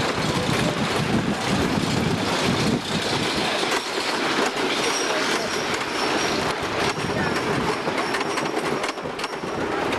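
Wooden roller coaster train rolling out of a turn and onto the chain lift, then being hauled up the lift hill with a steady rattling clatter of wheels and chain.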